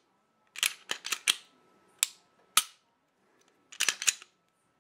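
An unloaded Glock 19 being function-tested: sharp metallic clicks and snaps as the slide is cycled, the trigger breaks and the trigger resets. About nine clicks come in small groups.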